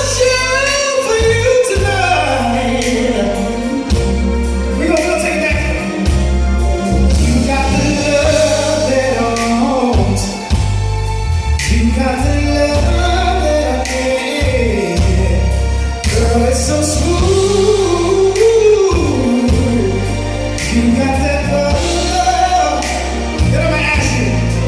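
R&B singing over band backing with a heavy, continuous bass; the vocal line bends and slides through long, drawn-out runs.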